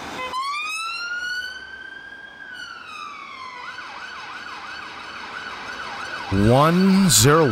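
UK police van siren sounding as the van moves off: one slow wail rising and then falling, then switching to a fast yelp. A man's voice cuts in loudly over it near the end.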